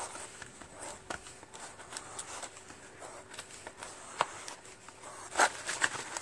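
Metal putty knife scraping and smearing two-part JB Weld epoxy around a paper plate while mixing it: soft scrapes and small ticks, with a sharper click about four seconds in and another about a second later.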